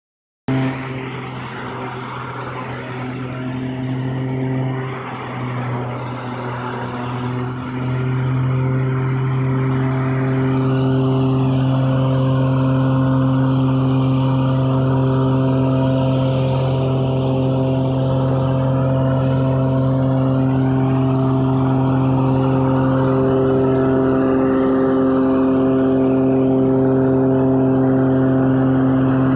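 Wood chipper running with a steady, even drone that starts abruptly and grows louder about eight seconds in.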